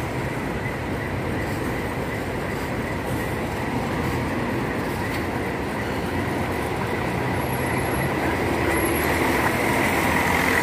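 Mercedes-Benz coach's diesel engine running as the bus moves slowly past. A steady rumble with a faint high whine, growing louder near the end.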